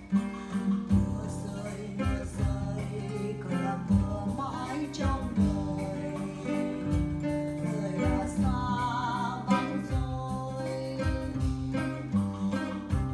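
Music: an instrumental break in a ballad, with guitar over a steady bass and beat, and a wavering melody line in the middle.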